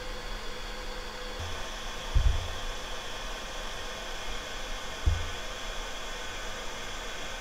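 Steady hiss with two short, dull low thumps, about two seconds in and again about five seconds in.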